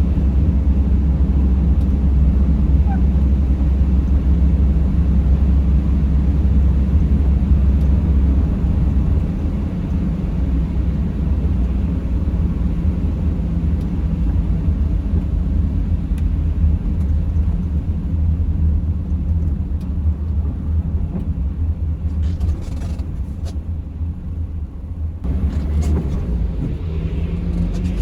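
Car driving: a steady low rumble of engine and tyres on the road, easing slightly about a third of the way in, with a few faint clicks near the end.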